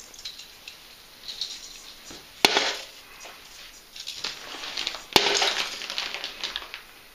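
Christmas baubles dropped into a green plastic toy trailer: two sharp knocks, about two and a half seconds in and again near five seconds, with light rustling and handling between.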